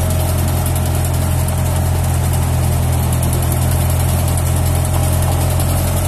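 Yanmar rice combine harvester's diesel engine running steadily, a constant deep drone with a faint steady whine on top.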